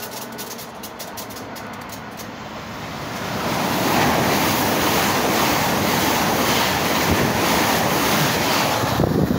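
LNER Azuma high-speed train passing through the station at speed without stopping: a rushing noise that swells about three seconds in and then holds loud and steady.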